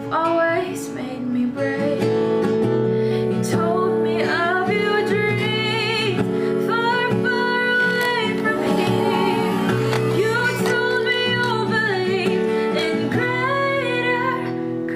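A song with a woman's singing over plucked guitar-like accompaniment, playing continuously.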